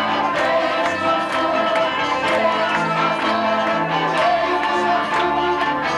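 A congregation singing a worship song together over electric keyboard accompaniment with a steady beat.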